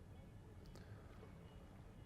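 Near silence: a faint, even low background rumble with a couple of faint ticks.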